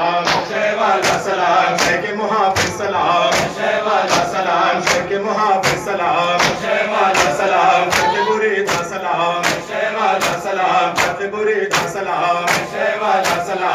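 A crowd of men singing a noha together behind a lead reciter, with the sharp slaps of hands beating on chests (matam) keeping an even beat about twice a second.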